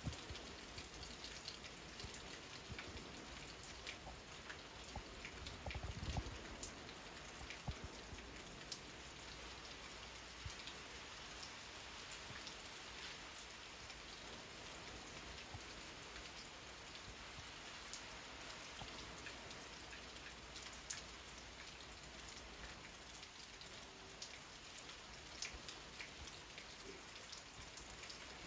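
Steady rain falling, with many individual drops ticking close by. There is one brief low thump about six seconds in.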